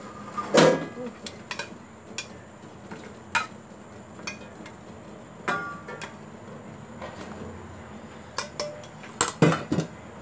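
Stainless steel bowl and utensil knocking and clinking against a stainless steel pot as raw chicken bones are tipped into boiling water. It is a scattering of sharp metallic knocks, some ringing briefly, loudest about half a second in and again in a quick cluster near the end.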